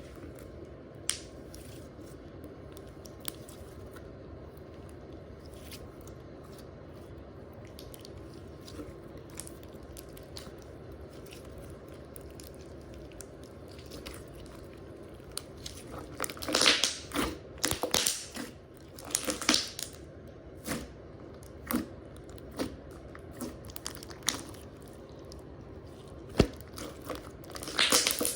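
Slime being worked by hand, with irregular crackling, popping squishes. The squishes come quietly at first and get louder and denser about halfway through.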